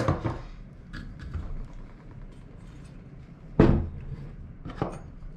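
Knocks and clicks from a kayak pedal drive being turned over and handled on a table, with the loudest thump about three and a half seconds in.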